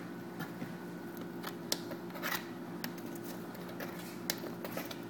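A plastic stick tapping and scraping on a sheet of paper: scattered light clicks and one short scrape a little past two seconds in, over a steady low hum.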